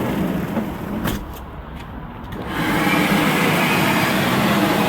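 Air blower forcing air into a charcoal forge fire, a steady rush of air that gets clearly louder and brighter about two and a half seconds in, with a couple of light knocks before that.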